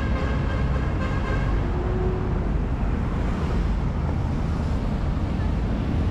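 Street traffic noise with wind rumbling on the microphone. A vehicle horn is held through the first second and a half.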